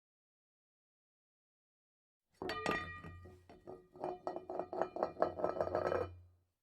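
Silence, then about two and a half seconds in, music with held notes and rapid clinking clicks over a low hum, cutting off shortly before the end.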